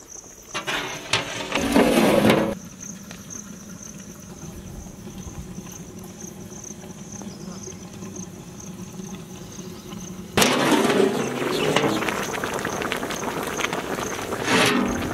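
Large pot of fish curry boiling hard over a wood fire, bubbling and hissing. It is loud for the first two seconds, cuts to a quieter stretch, and comes back loud from about ten seconds in. A steady high insect buzz runs underneath.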